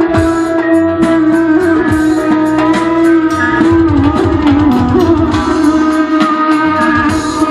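Live band music in an instrumental passage without singing: a plucked-string melody over a steady drum beat, as part of an Uzbek wedding song.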